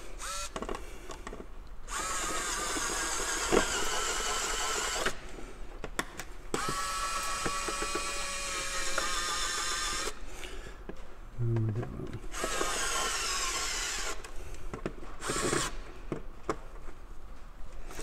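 Wiha speedE II electric screwdriver driving the screws of a wall plate, its motor running with a steady whine in three spells of a few seconds each, with light handling between them.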